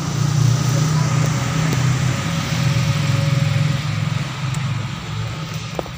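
Car petrol engine idling, heard up close under the open hood while the ignition coil connectors are being worked on; the sound gets somewhat quieter about four seconds in.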